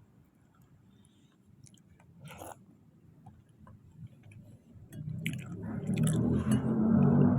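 Close-up chewing of soft, wet chunks of sweet potato in kolak, with moist mouth clicks. It starts faint with scattered small clicks and grows steadily louder through the second half.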